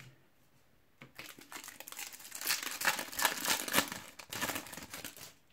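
Foil wrapper of a Topps Match Attax card packet crinkling and tearing as it is ripped open by hand, starting about a second in.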